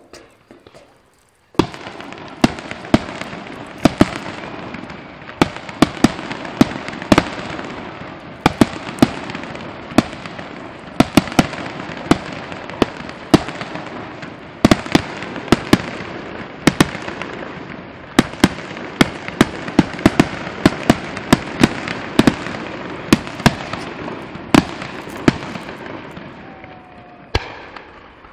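Fireworks display: a dense barrage of sharp bangs, several a second, over a continuous din. It starts suddenly about a second and a half in and dies away near the end.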